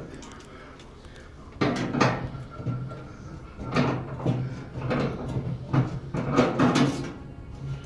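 Gas dryer being handled and shifted for disconnection: a series of uneven clunks, knocks and scrapes from its metal cabinet and back-panel fittings, in clusters over a low steady hum.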